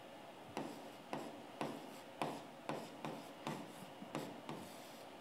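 A pen stylus writing by hand on the glass of an interactive touchscreen board: a row of short scratchy strokes, about two a second, as a word is written out.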